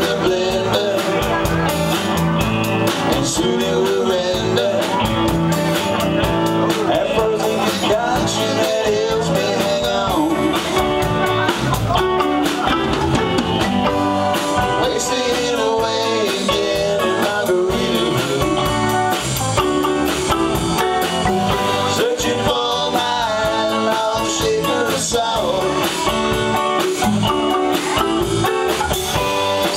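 Live band playing electric guitars, bass guitar and drums with a steady beat.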